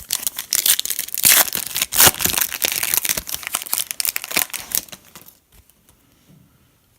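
Foil trading-card pack wrapper crinkling and tearing as it is opened, in a dense run of crackles that stops about five seconds in.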